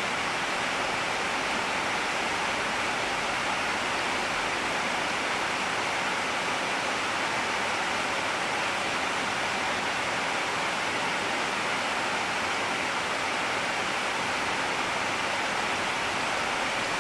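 Steady, even hiss of noise that does not change, with no other sounds in it.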